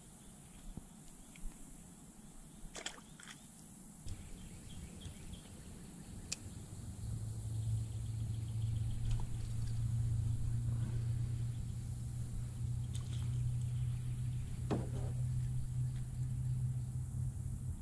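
A motor's low, steady drone builds up about four seconds in and then holds. Over it come a few sharp clicks and knocks from fishing tackle being handled in the canoe.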